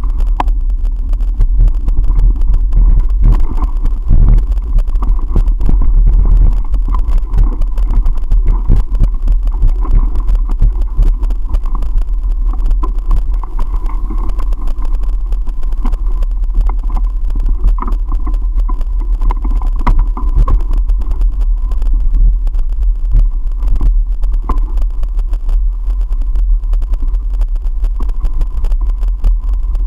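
Wind rumbling on the microphone of a camera riding along on a mountain bike on a dirt singletrack, with frequent knocks and rattles from bumps in the trail.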